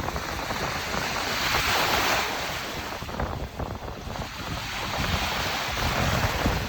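Waves breaking and washing up on a river beach, swelling twice, with wind buffeting the microphone.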